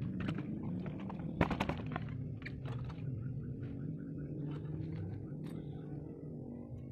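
Metal engine parts of a Tanaka brush cutter clinking and knocking as they are handled and taken apart by hand, with one sharp knock about a second and a half in. A steady low hum runs underneath.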